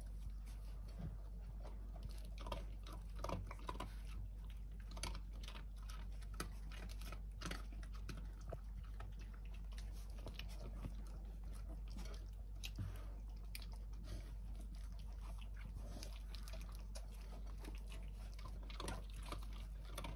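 Four-week-old Australian Shepherd puppies chewing dry kibble, with many small, irregular crunches and clicks.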